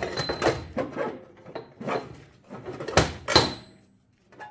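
Heavy steel 1-inch-drive impact sockets being handled, clanking and knocking against metal, with two sharp ringing clanks about three seconds in.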